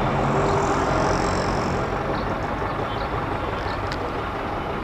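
Motorcycle engine running at low speed in slow street traffic, with a steady wash of road and traffic noise that slowly gets quieter.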